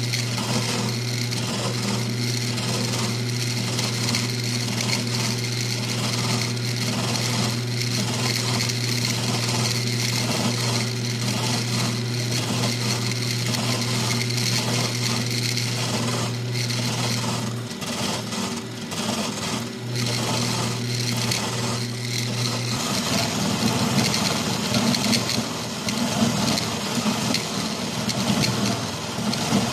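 Milling machine running with its cutter taking a cut along the side of a metal T-nut blank, a steady hum with a regular cutting rhythm. About 23 seconds in the steady hum drops out and the cut turns rougher and louder.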